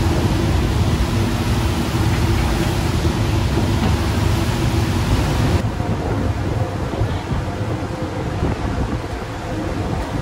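Passenger ferry under way: a steady engine drone with wind and rushing water across the open deck. About halfway through the rushing high end drops away abruptly, leaving a lower rumble with wind buffeting the microphone.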